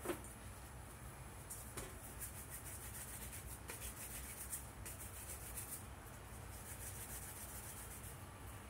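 Hands rolling a small piece of bread dough between the palms, a faint, soft rubbing that comes and goes, with a light knock right at the start.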